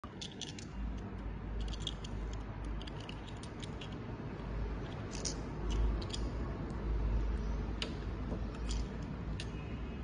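Handling noise: many light, scattered clicks and ticks over a steady low rumble.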